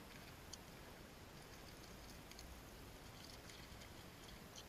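Near silence: faint outdoor background hiss with a few faint, scattered ticks.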